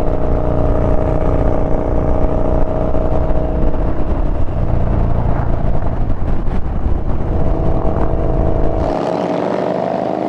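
Yamaha Bolt's air-cooled V-twin engine running at steady revs while riding, with heavy wind rumble on the helmet microphone. Near the end the wind rumble drops away suddenly while the engine note carries on.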